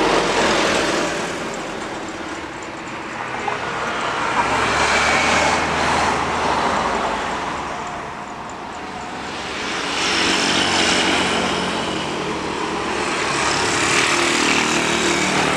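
Jet airliner noise as an Airbus A320 lands and rolls out on the runway: a broad rushing roar that swells and fades in slow waves, louder again about ten seconds in and near the end.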